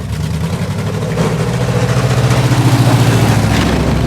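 A vehicle engine running, starting up loud at the outset and growing louder over the first two seconds or so, then holding a steady low note.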